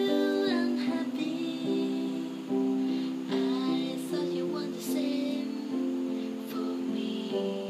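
Electronic keyboard playing a slow piece in a piano voice: held chords under a simple melody, the notes changing every half second to a second.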